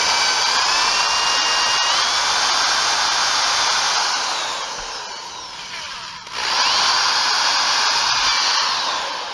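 Electric drill boring a pilot hole down through asphalt composite shingles and roof sheathing. The motor whine rises about two seconds in, eases off, stops briefly about six seconds in, then runs again and fades. The bit pops through without biting into solid wood, the sign that the hole has missed the roof truss.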